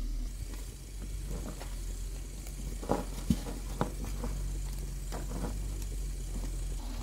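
Dough pieces being pushed off a metal tray into a pot of boiling water: a string of short knocks and plops, the loudest cluster about three seconds in, over a steady low hum.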